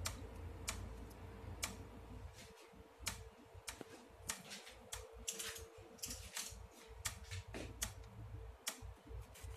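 Irregular sharp clicks and light taps, about one or two a second, from utensils and a plate being handled, over a steady low hum.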